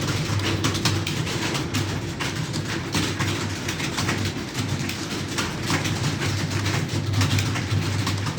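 Many computer keyboards typed on at once, a dense, irregular clatter of key clicks from a room of students taking a timed typing test, over a steady low hum.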